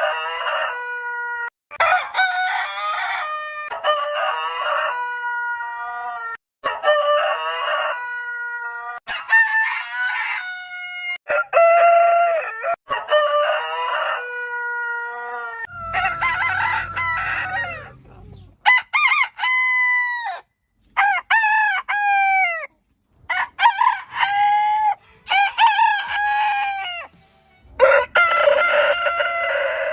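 Roosters crowing, one crow after another, with abrupt cuts between them; from about halfway through, the crows are shorter and fall in pitch at the end, and a low rumble sits under one of them.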